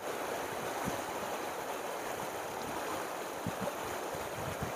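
Steady rushing of the swollen, fast-flowing Ganges in flood, with a few faint low thumps of wind on the microphone.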